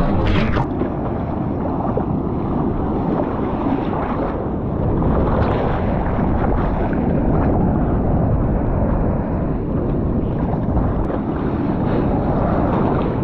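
Heavy shore-break waves breaking, with water sloshing against a GoPro held at the surface: a steady rushing with a few brief splashes.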